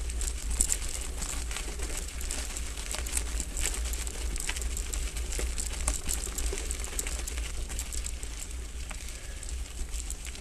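Hardtail mountain bike tyres crunching over a loose, stony dirt track on a slow climb, with many irregular sharp clicks of gravel and a steady low rumble underneath.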